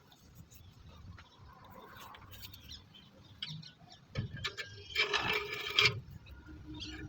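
Metal parts of a small diesel engine knocking and scraping as the oiled piston and connecting rod are worked into the cylinder block by hand. A knock comes about four seconds in, followed by a loud, ringing metal scrape lasting about a second.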